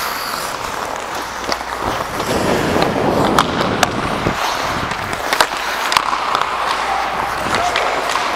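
Ice hockey skate blades scraping and carving across the rink ice, with several sharp clacks of sticks and puck.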